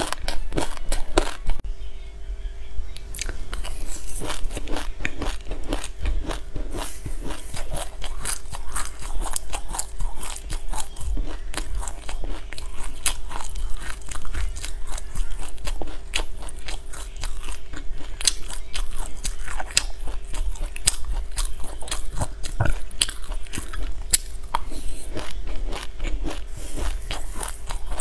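Close-up crunching and chewing of a mouthful of dry raw sesame seeds: many small crisp crackles in quick, uneven succession.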